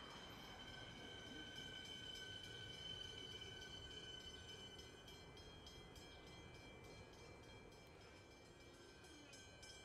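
Siemens electric multiple-unit commuter train pulling in alongside the platform and slowing to a stop, a low rumble with a steady high whine of several tones over it.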